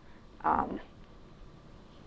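A woman's brief voiced sound, falling in pitch, about half a second in, followed by quiet room tone in a small room.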